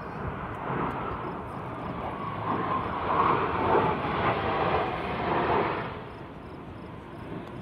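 A Blue Angels jet flying past: a rushing jet noise that builds, is loudest a few seconds in, then fades away by about six seconds.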